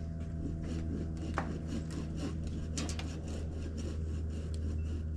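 Hand saw cutting through a small branch in steady back-and-forth strokes, about two to three a second, over a constant low engine hum.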